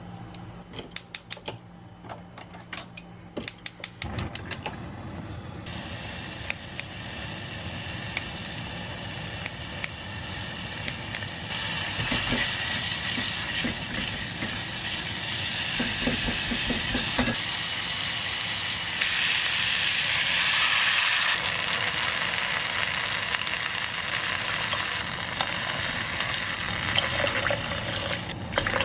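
Gas stove burner igniter clicking rapidly for a few seconds, then sliced beef sizzling in oil in a pot on the lit flame, getting louder as it is stirred and scraped with a silicone spatula. Near the end, water is poured into the pot.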